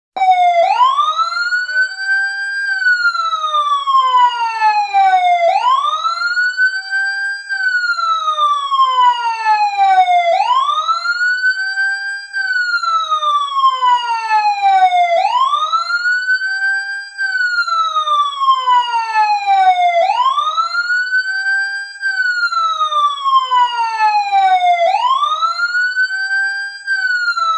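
Fire truck siren wailing loudly, coming on suddenly: each cycle rises quickly, then falls slowly, repeating about every five seconds. It sounds as the countdown timer reaches zero.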